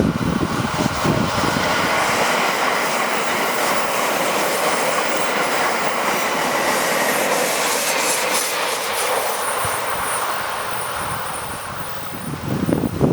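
A 681-series limited express electric train runs past at speed: a steady rush of wheels on rail with clickety-clack, easing off after about ten seconds. Wind buffets the microphone at the start and again near the end.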